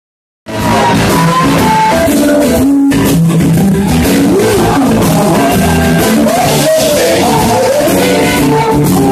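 Live blues band playing loud, with electric guitars and drums, and a woman singing over them. The music starts abruptly about half a second in.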